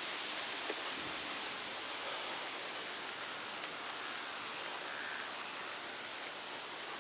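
Storm wind rushing through trees: a steady hiss with no breaks.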